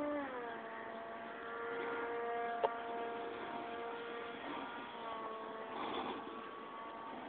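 Electric motor and propeller of a radio-controlled P-51 Mustang model plane in flight, a whine whose pitch drops as the throttle is eased back right at the start, then holds steady. A single sharp click about two and a half seconds in.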